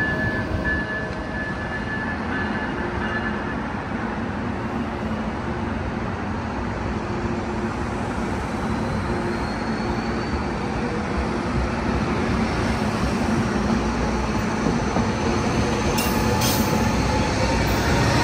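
Passenger train running on the rails, a steady dense rumble that grows slowly louder toward the end, with thin high squealing tones coming and going over it.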